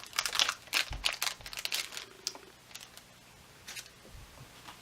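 Plastic packaging crinkling as it is handled, a quick run of crackles over the first two seconds, then a lone rustle later on.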